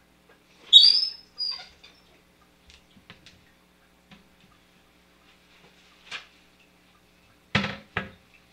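A chair creaking as someone gets up from it: a short high squeak about a second in, and a weaker one just after. Near the end come two short noisy sounds.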